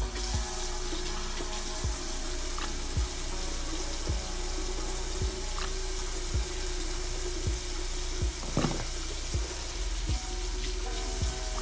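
Bathroom tap running steadily into a sink, a constant hiss that starts at the very beginning.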